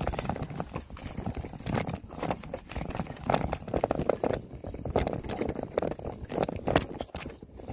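Mountain bike riding down a rocky dirt trail: tyres crunching over dirt and loose stones, with irregular rattles and knocks as the bike goes over bumps.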